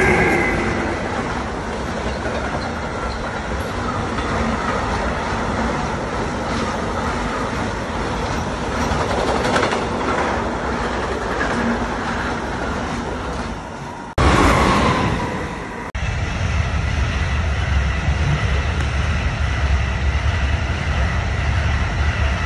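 A DB class 152 electric locomotive and its container freight wagons pass close by. There is a falling whine as the locomotive goes past, then the steady rolling noise of the wagons' wheels on the rails. After a cut comes a short, louder burst of another passing train, and then an ICE high-speed train passes with a deep, steady rumble.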